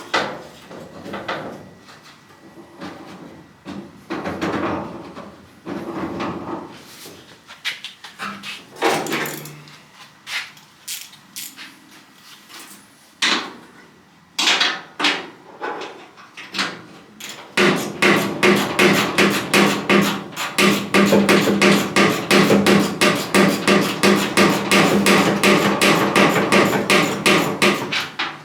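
Hammering on truck-body sheet metal. Scattered knocks and clanks come first, then about two-thirds in a fast, steady run of blows, several a second, with the panel ringing under them.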